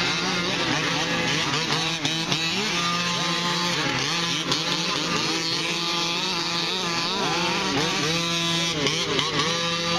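Several 1/5-scale RC cars' small two-stroke gas engines racing together, their pitches overlapping and rising and falling as each one revs up and backs off, over a steady low drone.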